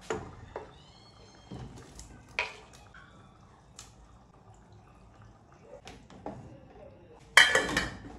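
Kitchen clatter of dishes and utensils: scattered knocks and clinks, with one louder, noisier clatter about half a second long near the end.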